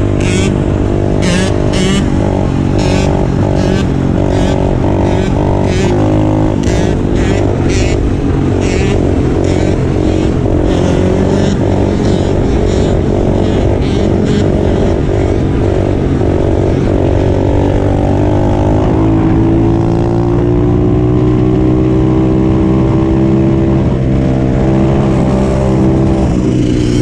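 Dirt bike engines running hard under way, with a steady rise in engine pitch over several seconds about two-thirds of the way through as a bike accelerates.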